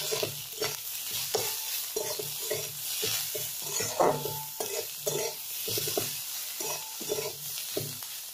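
Onions, brinjal and green chillies sizzling in hot oil in a metal kadai, stirred with a spatula that scrapes the pan in repeated short strokes, about three a second. The loudest stroke comes about four seconds in.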